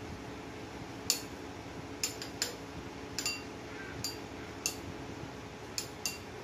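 Stainless-steel box grater clinking as a block of cheese is rubbed over it into a bowl: about ten short, irregular metallic clicks with a brief ring.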